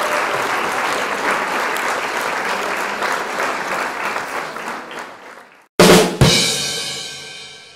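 Applause fading out over about five seconds, then two quick drum hits and a cymbal crash that rings out.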